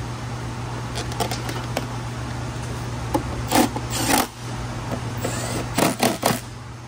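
Milwaukee M12 cordless driver run in short bursts, driving in the timing belt cover bolts, with light metal clicks as the bolts and socket are set. Two bursts come in the middle, then a quick cluster of bursts near the end.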